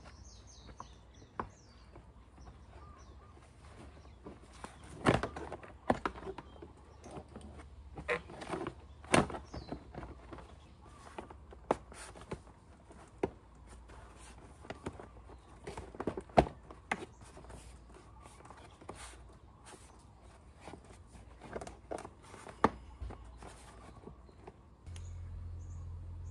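Plastic body panels of a Genuine Hooligan 170cc scooter being fitted by hand: scattered clicks, taps and knocks of hard plastic pressed and snapped against the frame and against each other. A steady low hum comes in near the end.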